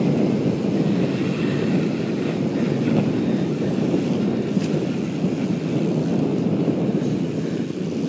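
Steady wind rush and road rumble on the microphone of a camera moving along the street at riding speed.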